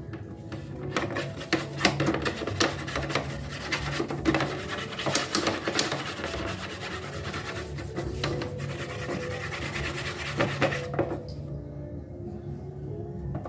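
Scrubbing and rubbing on a bird cage as it is cleaned: a continuous scratchy rasping dotted with small clicks and knocks, which stops suddenly about eleven seconds in. A steady low tone runs underneath.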